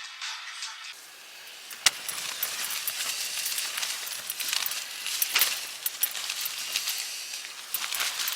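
Wind buffeting a Tarptent StratoSpire 1 tent: a steady rushing hiss of fabric flapping and rustling, with many small sharp ticks and rattles and one louder click about two seconds in.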